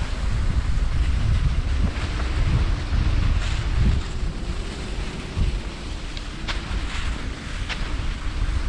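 Wind buffeting the microphone in an uneven low rumble, strongest in the first half, with a few scattered sharp clicks over it.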